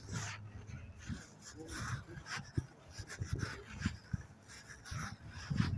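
A dog's small sounds amid faint voices.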